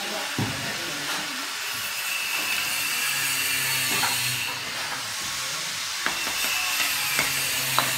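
A steady hiss with a low hum that comes and goes, under a few sharp clicks of bricks and a trowel knocking as bricks are set into mortar.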